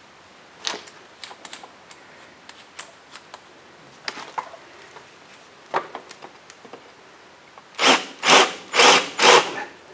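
Scattered clicks and knocks of tools being handled, then, near the end, four short bursts of a drill-driven countersink bit cutting into a screw hole in a wooden plank.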